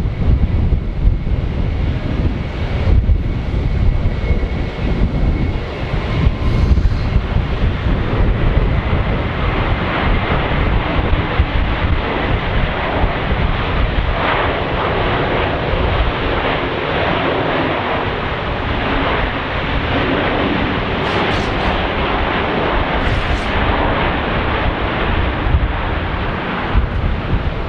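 Boeing E-4B (747-200B) jet with four General Electric CF6-50E2 turbofans landing, its engine noise building about eight seconds in and holding loud for most of the rest before easing near the end. Heavy wind gusts buffet the microphone throughout.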